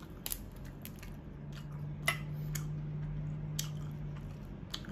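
Raw blue crab shell cracked and pulled apart by hand: several sharp cracks and snaps, spaced out, over a low steady hum that fades out near the end.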